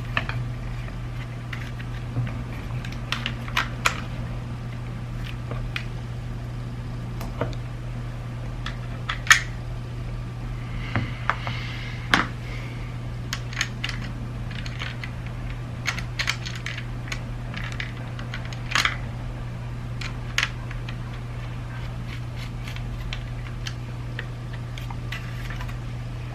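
Small plastic parts of a BMW iDrive controller clicking and tapping as they are handled and fitted back together, in irregular single clicks with a few louder snaps, over a steady low hum.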